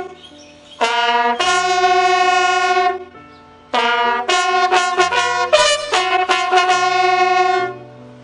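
Background music: a slow trumpet melody of long held notes over a low sustained accompaniment, breaking off briefly twice, then moving into a phrase of shorter notes about four seconds in.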